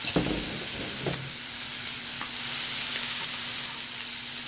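Seafood and steak sizzling on the hot grill ring of an electric hot pot: a steady hiss that swells a little around the middle. A couple of brief soft knocks come near the start.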